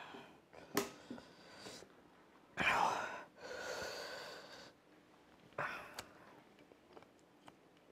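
A man's sharp, breathy gasps from the burn of Carolina Reaper chili wings: a loud gasp about two and a half seconds in runs into a long exhale lasting over a second, with a few shorter breaths around it.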